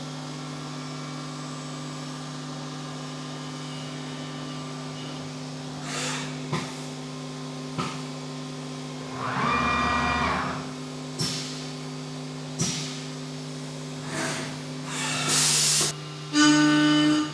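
Haas UMC 750 five-axis CNC mill running a chamfering toolpath at full speed: a steady machine hum, broken by short cutting noises and a pitched squeal about ten seconds in. Near the end come a hiss and then a louder, short squeal.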